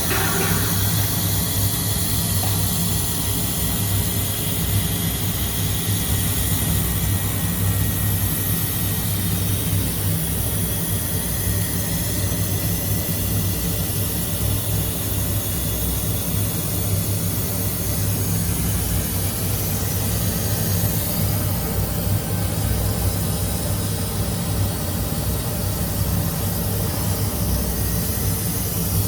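Large-format mirror laser sand blasting machine running: a steady low machine hum with an even hiss above it.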